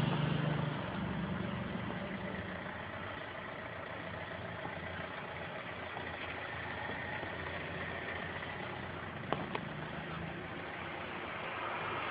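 A car engine idling with a steady hum, and two short clicks about nine seconds in.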